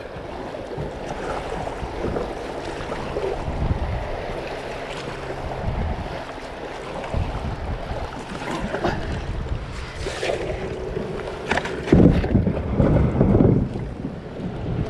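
Kayak on a running river: water rushing and wind buffeting the microphone, with a louder stretch of low rumbling knocks near the end.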